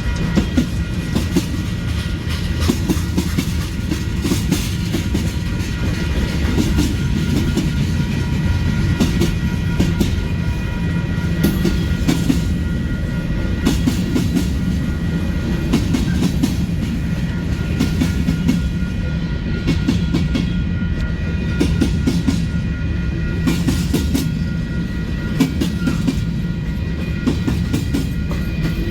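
Freight train cars rolling past, with a steady low rumble and irregular clacks of steel wheels over the rail joints.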